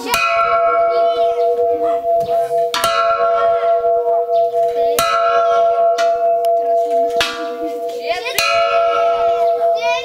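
Makeshift bell made from a hanging metal gas cylinder, struck with a metal bar about five times, roughly every two seconds. Each blow leaves a steady, ringing tone that carries on under the next one.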